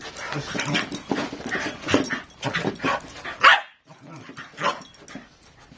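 A Shiba Inu and a Boston terrier–French bulldog mix play-fighting, giving a quick, irregular run of short dog noises and yips, the loudest a little past three seconds in, with a brief break just before four seconds.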